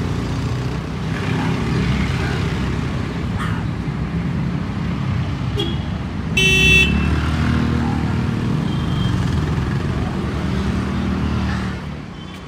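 Steady hum of road traffic, with a vehicle horn honking once for about half a second near the middle.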